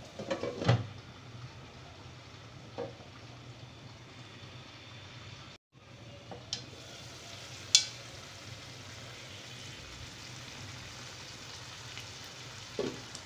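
Hilsa steaks in mustard gravy sizzling steadily in a frying pan as the second side fries and the gravy cooks down, with a few sharp clicks of the spatula against the pan. The sound drops out for a moment midway.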